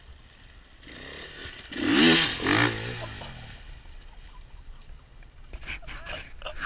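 Dirt bike engine revving up, its pitch rising and wavering, loudest two to three seconds in. Near the end come a few sharp clattering knocks.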